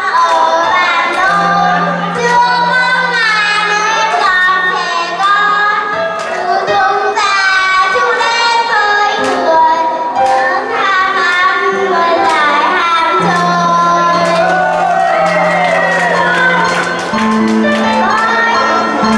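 Children singing through a microphone over a backing track, with held bass notes and a light steady beat.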